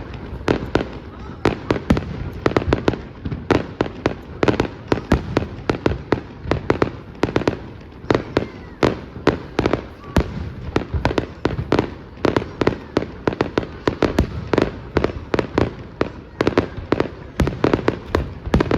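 Fireworks display going off in a dense, continuous barrage of sharp bangs, several a second, over a low rumble.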